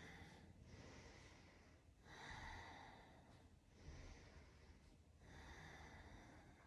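A woman's slow, faint breathing as she holds a yoga cobra pose: four soft breath sounds, each a little over a second long.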